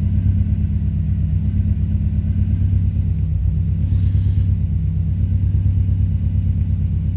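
2005 Subaru Forester XT's turbocharged 2.5-litre flat-four engine idling at a steady speed with an uneven, pulsing rumble: the rough idle of an engine the owner says is running rich.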